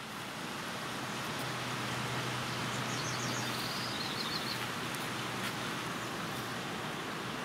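Steady rushing outdoor background noise with a faint low hum, and a few short bird chirps about three to four seconds in.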